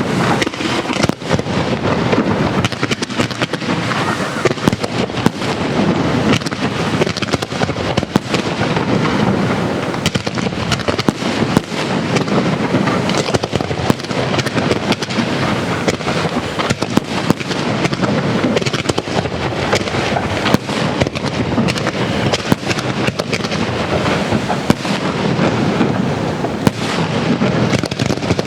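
Fireworks of a castillo display: a dense, unbroken barrage of crackling and rapid-fire bangs.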